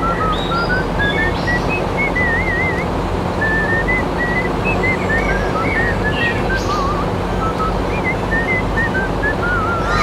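A steady droning hum with many short, high chirping whistle notes and a few wavy trills scattered over it.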